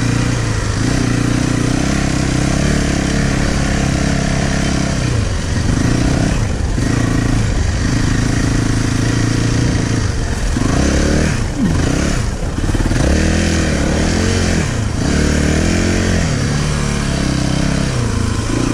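Yamaha motocross bike's engine under way while ridden, its revs held steady for stretches and dropping briefly a few times, then swinging quickly up and down with the throttle through the middle to later part.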